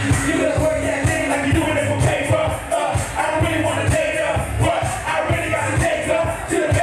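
Loud dance music with a steady beat, with crowd noise mixed in.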